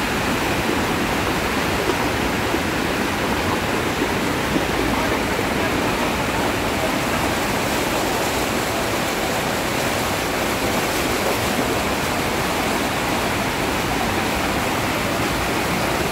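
Mountain torrent in full flood after a thunderstorm: a fast flow of muddy water and debris rushing past in a loud, steady rush that never lets up.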